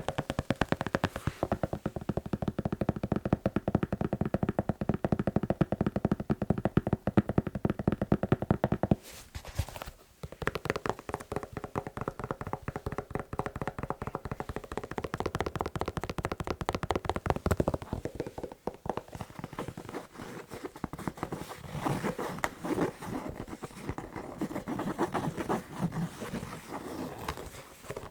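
Fast tapping and scratching on a shoe, a rapid steady patter of strokes in three runs broken by short pauses about ten and nineteen seconds in.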